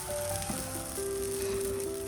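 Background music: a soft instrumental melody of clean, held notes that step from one pitch to the next.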